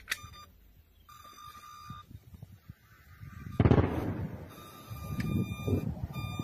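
A high, steady electronic tone with overtones, broken about three and a half seconds in by a sudden loud boom that dies away over about a second, after which the tone returns.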